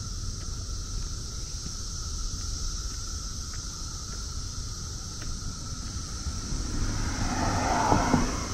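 Steady droning chorus of Brood X periodical cicadas. A car passes close by near the end, swelling in level to a peak just before it fades.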